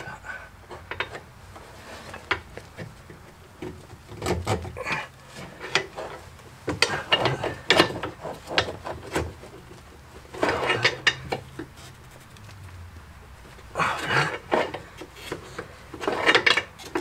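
Hand tools scraping, rasping and clinking on a car's front anti-roll bar as a seized original rubber bushing is pried out with a lever, in irregular bursts of effort separated by short pauses.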